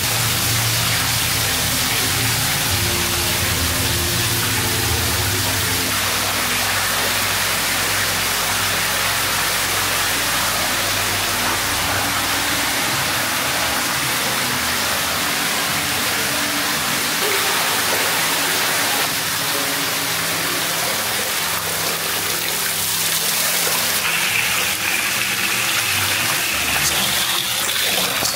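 Steady rush of pouring water, as from a cascade into a hot spring pool, with background music playing low held notes underneath.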